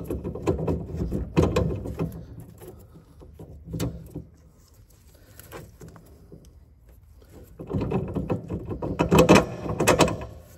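Metal clicks, taps and scrapes of a bolt being handled and fed through a motor mounting bracket against the steel frame. The clicks are busy in the first two seconds, there is a lull in the middle, and clattering picks up again near the end.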